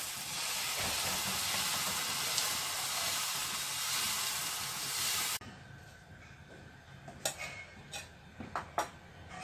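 Carrot dosa batter sizzling on a hot greased tawa, a steady hiss that cuts off abruptly about five seconds in, followed by quieter sizzling with a few light clicks.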